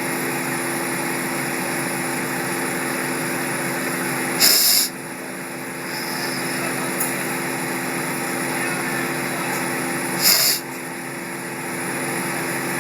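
A steady motor hum and hiss, with two short, loud hissing bursts about four and ten seconds in.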